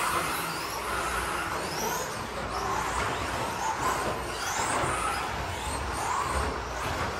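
1/10-scale electric RC stadium trucks with 13.5-turn brushless motors racing on carpet: motor whines that rise again and again as the trucks accelerate, over a steady rushing noise.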